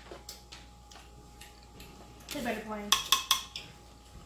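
Clinks and taps of fingers and leftover shells against a ceramic plate and a glass bowl, with a few sharp ringing clinks about three seconds in. A brief voice sound comes just before them.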